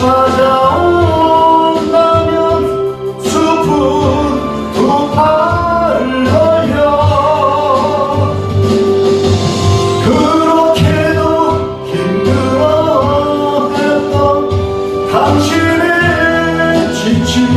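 Gospel song: a sung vocal line over steady instrumental accompaniment.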